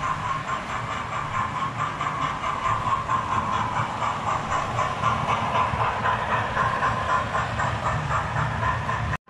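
A model steam locomotive and coaches running along the track past the camera: a steady motor whine with the rattle of wheels on the rails, growing louder as the train nears. The sound cuts off suddenly near the end.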